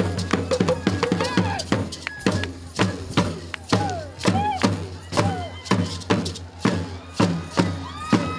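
West African percussion ensemble playing a fast, steady rhythm: sharp drum strokes and gourd rattles, with a talking drum bending some notes up and down in pitch.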